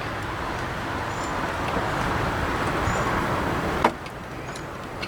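Steady rushing noise, then a single sharp click near the end as the glove box latch knob, pushed and pulled against its release tab, slips out to its first stop.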